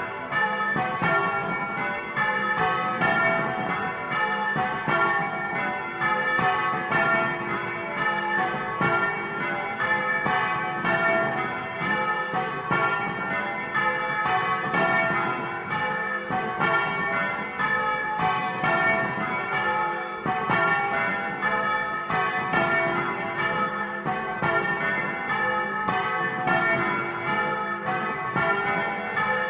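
Several church bells, swung by hand on ropes by a team of bell ringers, peal together, heard up close in the belfry. The strikes come in a rapid, steady run of about three a second, with the ringing tones overlapping.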